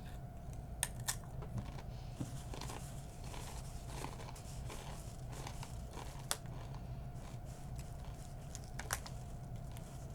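Chewing and crunching Blue Heat Takis rolled corn tortilla chips, a run of small crackles with a few sharper snaps.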